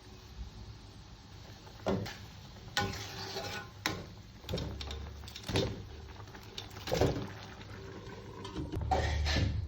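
Intermittent knocks and clatters of cookware and utensils being handled during home cooking, a few sharp strikes a second or so apart over a faint hiss.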